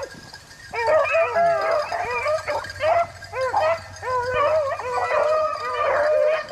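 A pack of rabbit hounds baying and howling together on a rabbit's trail. Several voices overlap in long, bending calls, pausing briefly at the start.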